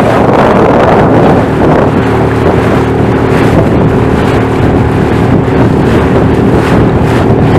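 Inflatable motorboat running at speed under a Yamaha outboard: wind buffeting the microphone and water rushing and splashing along the hull, over a steady engine hum that comes through more clearly about two seconds in.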